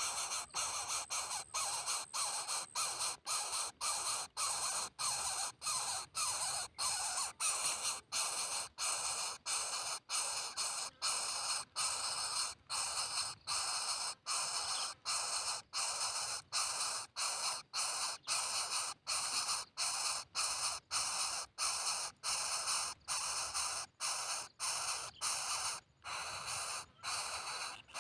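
Coucal chicks giving harsh, hissing calls in a steady run of about two a second, each broken off by a brief pause.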